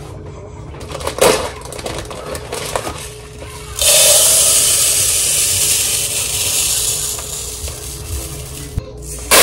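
Uncooked white rice poured from a bag into a plastic container, a steady shushing rattle that starts suddenly about four seconds in and slowly tapers off. It comes after a single knock about a second in.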